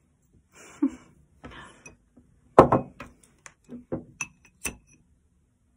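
Soft rustling, then a run of about nine light clicks and knocks over two seconds, a few with a short bright ring, as an incense stick is pushed and settled into a small hard holder on a wooden table.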